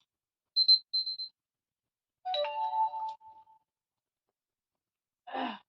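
Two short high-pitched electronic beeps, then a chime of several steady tones that rings for about a second and fades. A brief noisy sound follows near the end.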